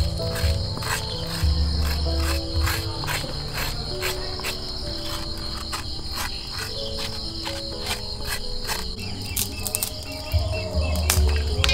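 Crickets trilling steadily at a high pitch over soft background music with a low bass line. A spoon scrapes seeds out of a green papaya in quick, even strokes, about two to three a second.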